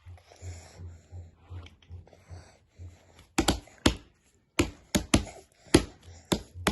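A series of about ten sharp taps or clicks, irregularly spaced, starting about halfway through, over a low hum and softer scattered noises.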